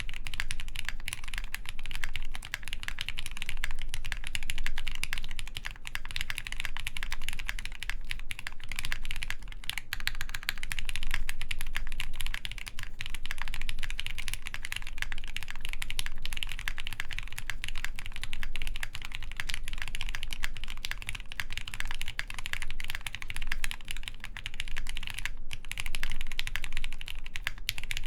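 Continuous fast typing on a custom Pixelspace Capsule mechanical keyboard with lubed Gateron Hippo switches, a full polycarbonate plate and GMK keycaps: a dense, steady stream of key clacks without pauses.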